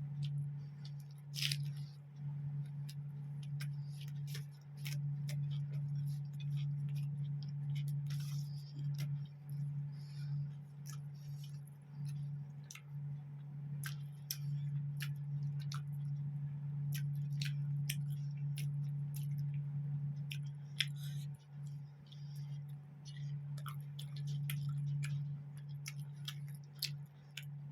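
Close-up eating sounds: a person chewing food, with many short wet clicks and smacks from the mouth scattered through. A steady low hum runs underneath and is the loudest thing.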